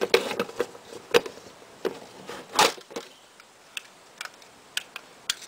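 Plastic parts and packaging being handled as a small plastic tool is taken out of a toy box: a string of sharp clicks and knocks. The loudest comes about two and a half seconds in, and fainter ticks follow.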